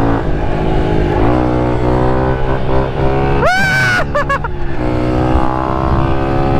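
Pit bike engine running hard as the bike speeds down a paved road, the pitch shifting about a second in as a gear changes. About halfway through there is a short high-pitched shout.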